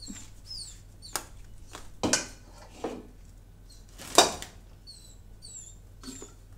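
Small dogs whimpering in short, high squeaks, with a few sharp short sounds between them; the loudest comes about four seconds in.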